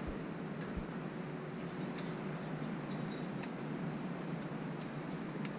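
Light metallic clicks and scratches of stainless safety wire being twisted into a tight pigtail with pliers, about a dozen small ticks from about one and a half seconds in, over a steady background hiss.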